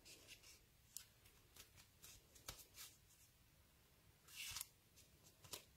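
Near silence with faint handling of a cardstock greetings card: a few soft taps and clicks, and a brief paper rustle about four seconds in.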